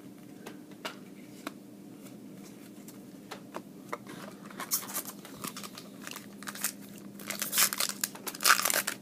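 Foil wrapper of a trading card pack crinkling and tearing as it is ripped open, starting about halfway through and loudest near the end. A few light taps of cards being handled come before it.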